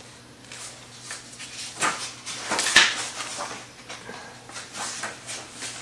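Pages of a paperback book being turned and riffled, a run of short papery rustles that is busiest about two to three seconds in.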